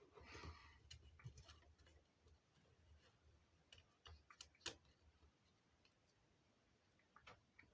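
Faint scattered clicks and taps of small hard parts being handled and set down. A cluster of clicks comes in the middle, the sharpest one a little before the 5-second mark, and a couple more come near the end.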